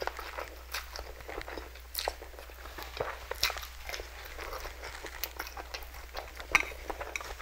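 Close-miked eating: slurping up spicy instant noodles and biting and chewing a sausage, with many short wet clicks and smacks.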